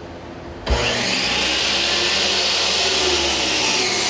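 A loud, steady machine whirring noise that starts suddenly less than a second in and holds on.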